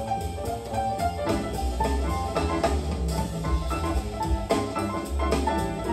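Jazz music with a drum kit and pitched instrument notes, played through a pair of Russell K Red 100 bookshelf loudspeakers.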